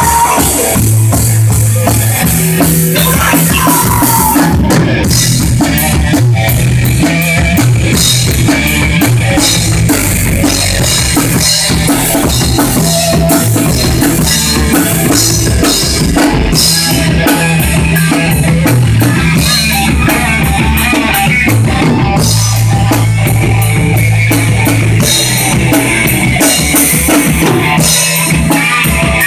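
Loud rock music played on drum kit, bass and guitar, with a steady beat and held bass notes.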